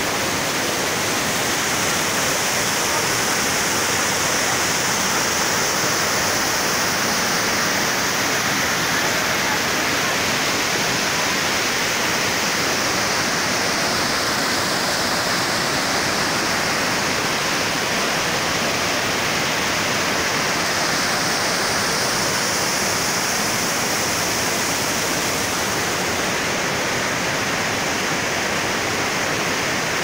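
Waterfall and the stream below it rushing steadily: a dense, even hiss of falling and churning water.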